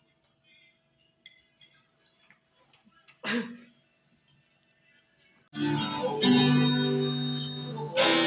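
A quiet stretch with faint light clicks and one short louder sound about three seconds in. Then, about five and a half seconds in, plucked guitar music starts loudly and carries on.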